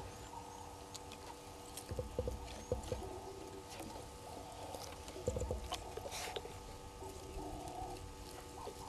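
Vervet monkeys moving through dry leaf litter and fallen branches: faint scattered rustling and small snaps and clicks, a few louder around two to three seconds in and again near the middle, over a steady faint hum.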